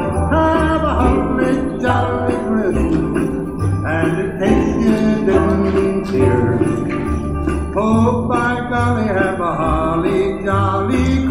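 Upbeat Christmas music with jingle bells shaking throughout over a steady bass line.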